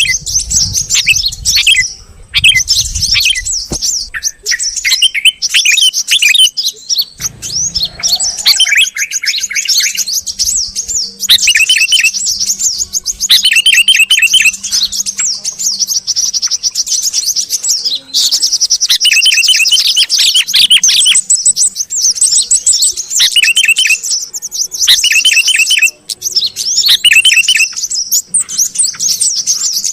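A lively chorus of yellow-vented and sooty-headed bulbuls: dense, overlapping high chirps and chatter, broken every few seconds by short bursts of quick, lower notes. This is a bird-trapping lure recording, meant to draw small birds in.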